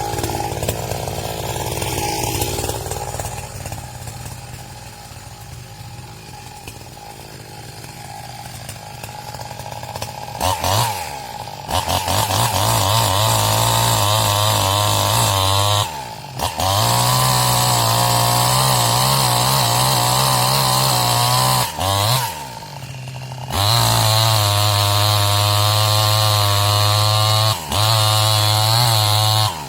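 New West 628 two-stroke chainsaw running quietly at first, then held at full throttle, felling a tree. Its revs drop back briefly three times, each time rising again at once.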